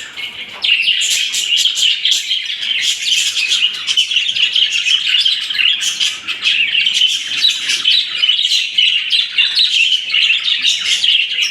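A flock of budgerigars chattering and chirping all at once, a dense continuous twittering that picks up after a brief lull at the very start.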